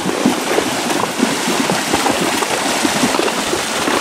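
Several horses wading through shallow lake water, their hooves splashing in a steady, irregular churning.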